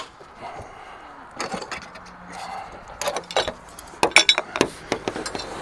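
Scattered metallic clinks, rattles and knocks, thickest about three to five seconds in, as someone climbs the back of a semi truck's steel sleeper cab and handles the tarp's fastenings.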